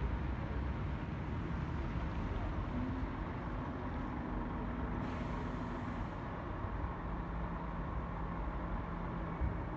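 Diesel engines of Stagecoach single-decker buses close by, a steady low rumble: one bus pulls out and turns, then another sits idling just in front.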